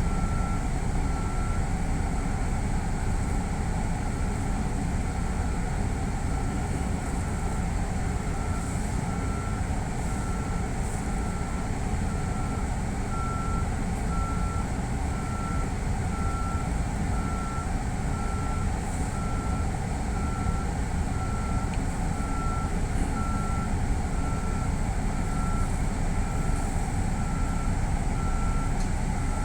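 Steady low rumble and hum of a stopped electric commuter train's running equipment, with a thin electronic beep repeating evenly about once a second.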